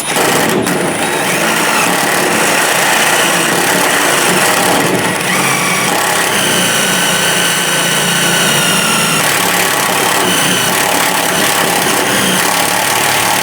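Electric drill running steadily, drilling out the heads of the door panel's rivets; its motor whine shifts in pitch now and then as the bit bites and the load changes.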